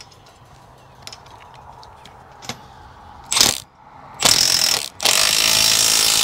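Milwaukee Fuel compact cordless impact tool driving the bolt of a pipe clamp. It gives a short burst about three seconds in, another a second later, then a long continuous run from about five seconds in.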